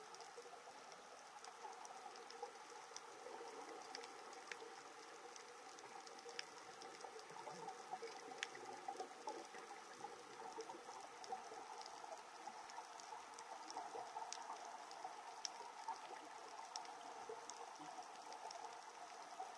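Faint underwater ambience picked up by a submerged camera: a steady hiss with scattered sharp clicks and crackles.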